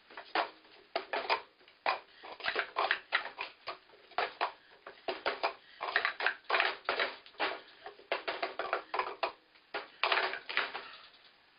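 Plastic sport-stacking cups clattering and clacking in quick runs as they are stacked up and brought back down. The clatter goes on for about eleven seconds and stops just before the end.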